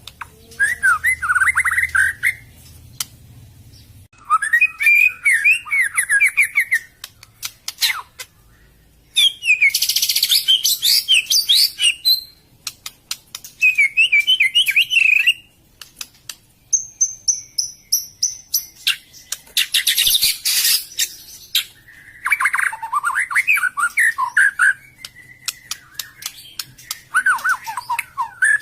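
White-rumped shama (murai batu) singing: a string of varied phrases of fast chirps, trills and whistles, each one to three seconds long, with short pauses and sharp clicking notes between them.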